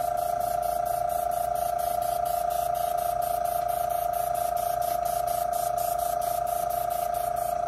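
A small airbrush compressor runs steadily while an airbrush sprays a light dusting of paint: an even hum under a fast, regularly pulsing hiss of air.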